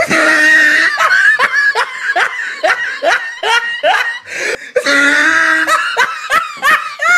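A person laughing hard: a long run of short, high-pitched laughs, a few a second, with a brief pause about four and a half seconds in.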